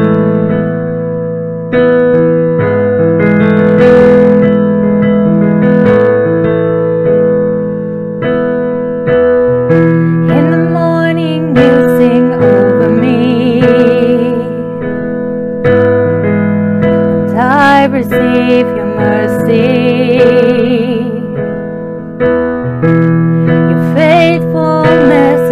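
A piano plays the slow chordal introduction to a worship song, its chords changing every couple of seconds. A woman's singing voice with a wavering vibrato comes in about ten seconds in.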